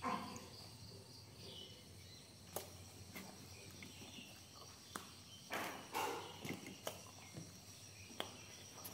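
Quiet rural outdoor ambience: a faint steady high chirring of crickets or other insects, with a few scattered knocks and rustles.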